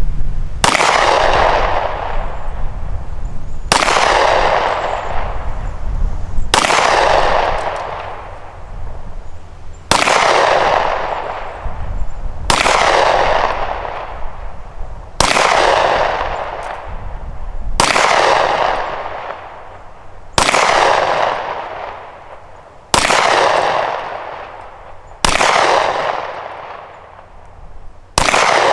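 Springfield Armory XD-45 subcompact .45 ACP pistol firing 230-grain full metal jacket rounds: eleven single shots at a slow, even pace, about one every two and a half seconds, each followed by a long echo that fades over a couple of seconds.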